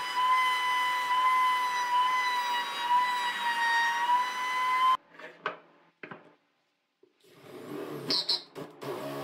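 Router table motor whining steadily at a high pitch as a bearing-guided trim bit cuts the edge of a round pine blank, stopping abruptly about five seconds in. A couple of short knocks and a brief pause follow, then a Makita cordless drill starts boring into the pine near the end.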